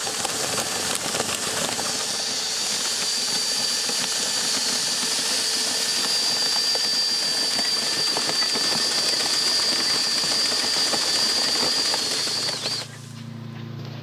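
Makita 18V cordless drill running steadily, turning a grain auger inside PVC pipe, with a thin high motor whine over the hissing rush of grain scraping up the pipe and pouring into a galvanised metal bin. It cuts off suddenly near the end, leaving only a faint low hum.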